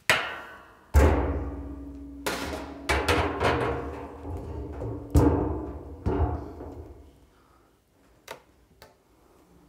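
Metal clanks and knocks from a Quarti stainless steel honey extractor as its lid is lifted and an uncapped frame is slotted into the cage. The loudest knock comes about a second in, and the metal drum rings on with a low hum after the knocks, which thin out over the last few seconds.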